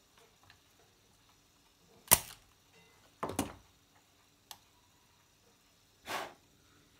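Spring-loaded desoldering pump firing with one sharp snap about two seconds in as it sucks solder off a circuit-board pin, followed by a few softer clicks and knocks.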